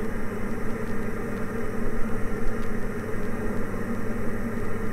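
Steady drone of a Diamond DA40 NG's turbo-diesel engine and propeller in flight, heard inside the cockpit.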